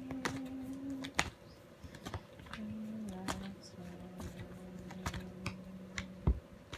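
A deck of oracle cards being shuffled by hand: a scattered run of crisp card clicks and slaps, the sharpest near the end. Underneath runs a low held tone that steps down in pitch a few times.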